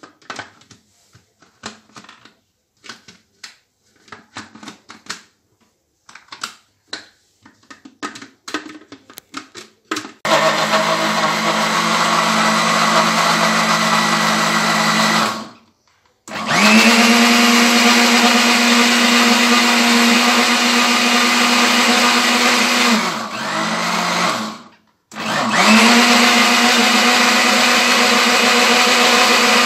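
Scattered plastic clicks and knocks as the blender's lid and jar are handled. About ten seconds in, a countertop electric blender starts, blending bananas, milk and honey into a smoothie. It runs loud and steady, cuts out briefly twice, and spins back up to full speed each time.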